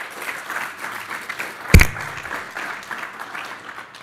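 Audience applauding, stopping abruptly at the end, with one loud thump a little under two seconds in.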